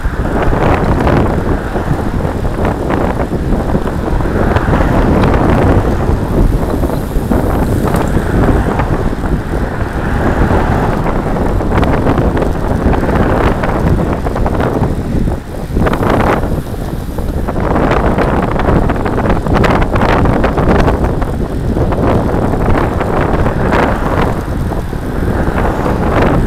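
Wind buffeting the microphone of a camera on a moving road bike. It is a loud rushing noise that swells and eases in gusts, dropping briefly about halfway through.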